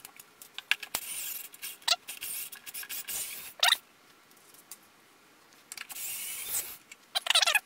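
Small cordless electric screwdriver whirring in several short bursts as it backs screws out of the bass module's bottom plate. Sharp clicks fall between the bursts, and a quick rattle of clicks comes near the end.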